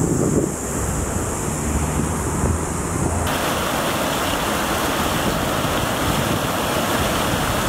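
Wind buffeting the microphone with a low rumble, then, about three seconds in, an abrupt change to the steady rush of a swollen, fast-flowing floodwater channel.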